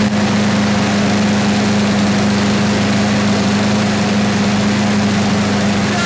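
Briggs & Stratton 190cc single-cylinder engine on a self-propelled push mower, running at a steady speed. It is running again after a no-start fault, its carburetor freshly cleaned of dirt.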